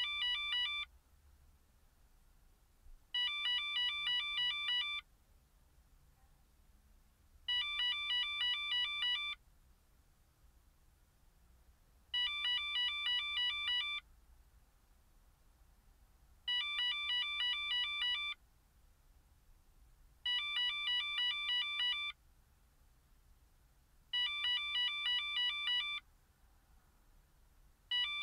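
Valentine One radar detector sounding its laser alert: bursts of about eight rapid high beeps, each burst just under two seconds long, repeating about every four seconds, the sign that it is picking up the handheld laser test gun.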